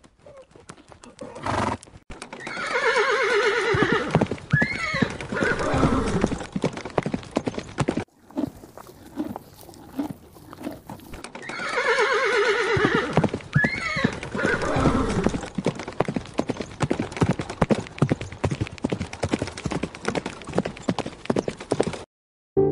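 Rapid horse hoofbeats, with a long, wavering horse whinny about three seconds in and again about twelve seconds in.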